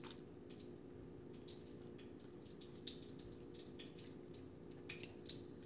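A fork pressing and flattening a soft, peeled boiled eggplant, making faint irregular wet clicks and taps. A steady low hum runs underneath.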